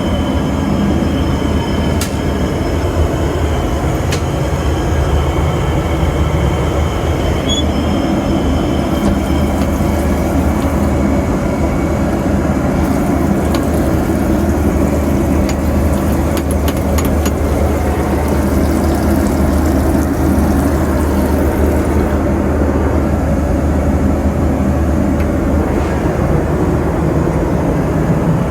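Steady low rumble of a Boeing 737 in flight: engine and airflow noise heard inside the cabin, with a few faint clicks in the middle.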